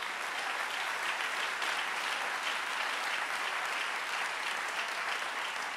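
Congregation applauding at a steady level.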